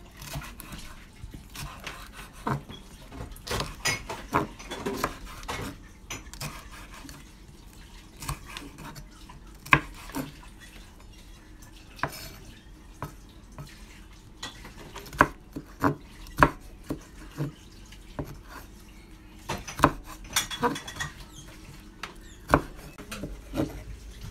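Kitchen knife slicing red bell peppers on a wooden cutting board: irregular knocks of the blade on the board, some sharper and louder than others.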